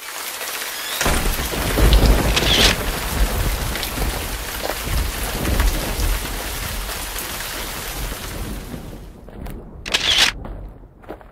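Rain-and-thunder sound effect: a steady hiss of rain with low rumbles of thunder in the first few seconds, fading out about nine seconds in. A short, sharp noisy burst follows near the end.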